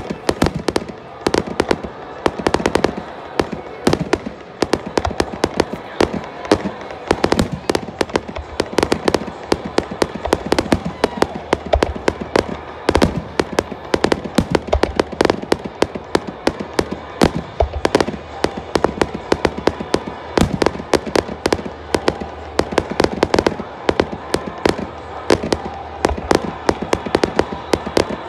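A fireworks display going off: a rapid, unbroken string of sharp bangs and crackles, several a second, as aerial shells burst.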